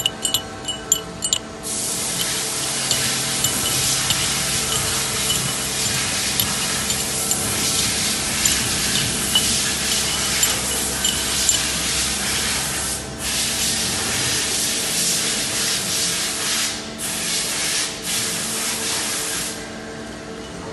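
A few sharp metal clinks as steel wheel-hub outer rings are handled, then a loud, steady spraying hiss starts about two seconds in, breaks briefly a few times later on, and stops shortly before the end. A steady machinery hum runs underneath.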